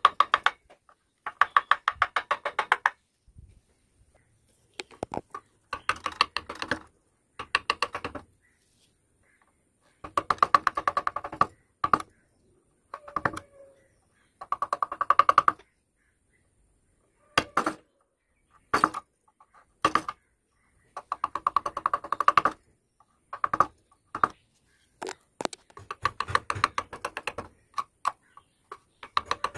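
Wood-carving chisel working into a wooden relief panel: quick bursts of rapid clicking taps, each about a second long, with short pauses between.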